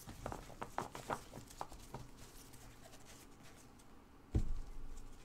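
Cards and packaging handled on a tabletop: a quick run of light clicks and taps, then fainter rustling, and one dull thump about four seconds in.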